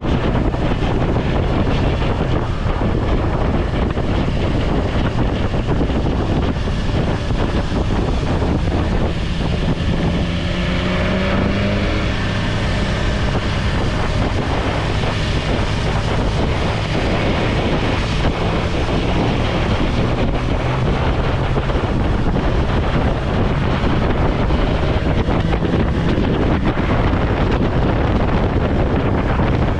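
BMW S1000XR's inline-four engine running while riding, heavily mixed with wind noise on the microphone. The engine pitch rises for a moment about ten seconds in.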